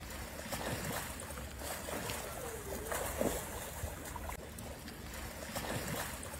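Pool water splashing and sloshing as a swimmer strokes along the surface, over a steady hiss.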